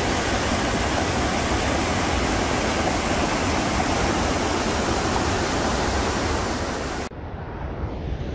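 Steady, loud rush of white-water rapids on the Niagara River, fast-flowing water tumbling over rock ledges. It cuts off suddenly about seven seconds in, giving way to a much quieter, duller background.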